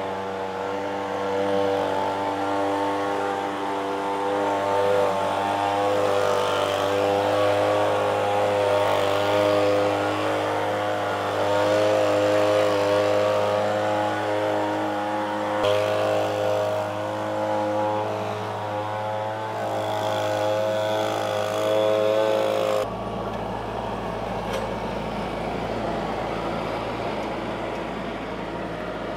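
A machine engine running steadily, its pitch drifting slightly up and down. About three-quarters of the way in it changes abruptly to a lower, rougher engine drone.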